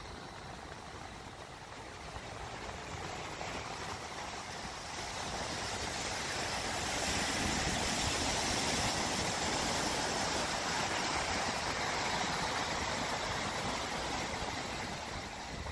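Ocean surf: waves breaking and washing up a sandy beach, a steady rushing noise that swells about halfway through and eases off near the end.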